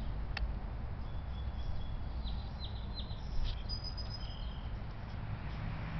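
Small songbirds chirping outdoors: a run of short, high chirps that drop quickly in pitch two to three seconds in, then a couple of thin, high whistles, over a steady low rumble.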